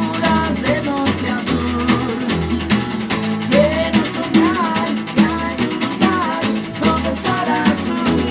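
A band playing an acoustic rock song: guitars over a drum kit keeping a steady beat, with a melodic lead line bending above them.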